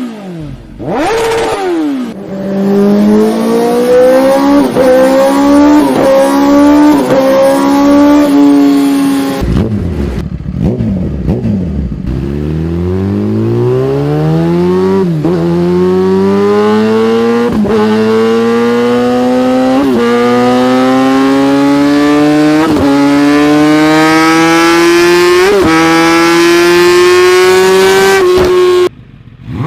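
Kawasaki ZX-10R inline-four on an aftermarket exhaust accelerating hard. The pitch climbs and dips briefly at each gear change. About ten seconds in, a second run starts from low revs and climbs through several gears before cutting off near the end.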